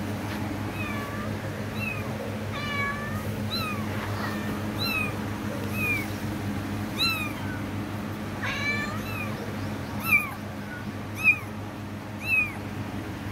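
Tabby kitten meowing over and over, short high-pitched mews about once a second, a few louder ones near the end.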